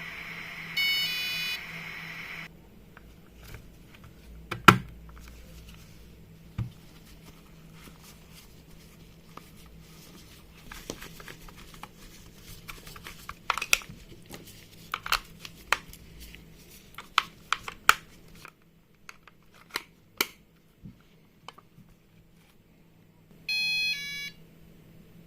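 Scattered clicks and knocks of small parts and a plastic case being handled on a workbench. A short electronic beep sequence of stepped tones sounds about a second in and again near the end.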